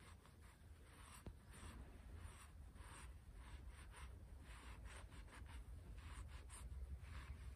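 A sponge scrubbing a billhook's steel blade clean, in faint, irregular rubbing strokes.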